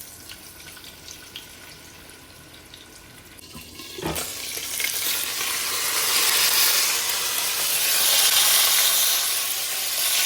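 Snakehead fillet frying in hot canola oil in a skillet: a light crackle at first, then a short knock about four seconds in, after which the sizzle swells into a loud, steady hiss.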